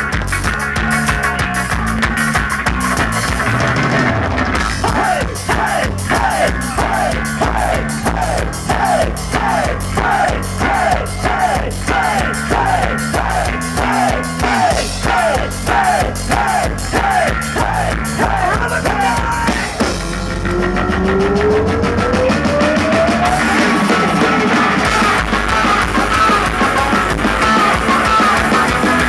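Ska-punk band playing live: drums, electric guitar, saxophone and trumpet. Through the middle a short falling figure repeats about twice a second, then a long rising slide leads back into the full band.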